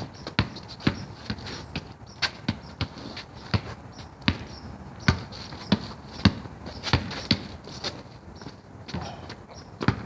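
Basketball being dribbled on an outdoor court: a long run of sharp bounces at uneven spacing, some quick and close together, others a second or so apart.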